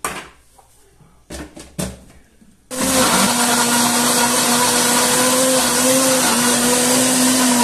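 A few short knocks as raw carrot chunks are dropped into the blender jar. About three seconds in, a Philco blender starts and runs steadily at full power with a loud motor hum, grinding the raw carrots into the egg, oil and margarine batter without grating.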